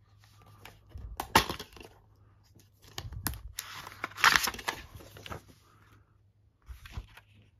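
Plastic DVD case handled and opened: sharp clicks and clatter of the case, then the crinkle of its paper insert being pulled out, loudest about four seconds in.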